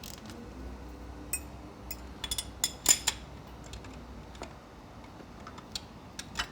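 Scattered metal clinks and taps of a socket and wrench being worked onto a nut on a motorcycle engine. A cluster of clicks comes a little over two seconds in, and the loudest clink comes about three seconds in.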